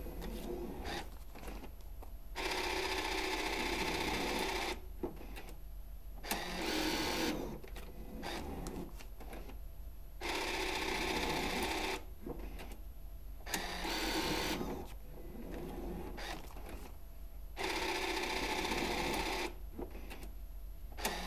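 NV200 bill validator's smart-payout transport motors whirring in repeated runs of one to two and a half seconds, with pauses of one to three seconds and a few clicks between them, as the unit dispenses notes as change for a $5 bill.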